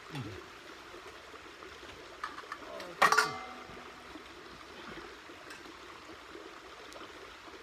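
Stainless steel cookware knocking together: a couple of light clinks, then about three seconds in a loud metallic clank that rings briefly, over a steady background hiss.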